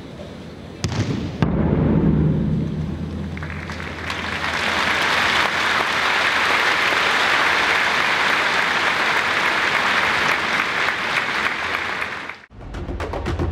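Large audience applauding in a big hall, swelling about three seconds in and holding steady, after a sudden loud low rumble about a second in. The applause cuts off abruptly near the end, replaced by percussive music with a wood-block beat.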